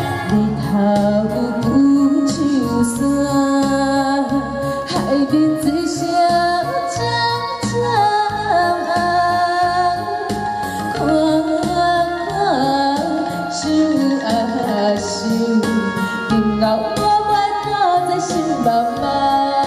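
A woman singing a pop song into a handheld microphone over accompanying music, amplified through a PA speaker.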